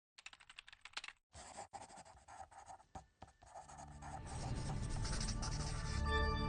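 Logo-animation sound effect of pen or pencil scribbling on paper in quick scratchy strokes, giving way about three and a half seconds in to a rising wash that swells into sustained music tones near the end.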